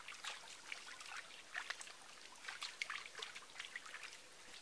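Faint, irregular small splashes and trickles of water as hands scoop from a shallow muddy stream and wash the legs.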